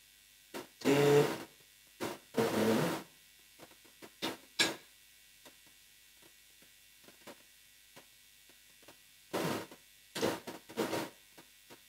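A man's voice in a few short bursts with long pauses between them. In the pauses there is a low steady hum and scattered small clicks, with one sharper click about four and a half seconds in.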